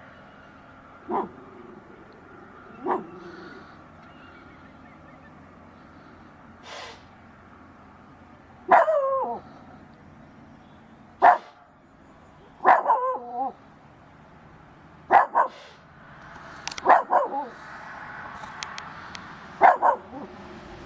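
A dog barking, single barks and short runs spaced a second or more apart, answered by a deer's snorts, sharp unpitched blasts of air.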